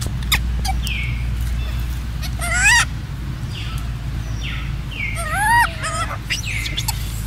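Macaques calling: two short, high, wavering squeals about three seconds apart, with a few short chirps between them over a steady low hum.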